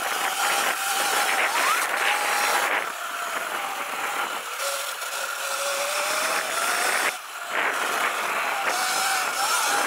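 Sur-Ron Light Bee electric dirt bike with a KO Moto Factory Spec motor and controller, its motor whining under way on a dirt trail over a rushing noise. The whine drops in pitch about halfway through and climbs again, and the sound dips briefly about seven seconds in.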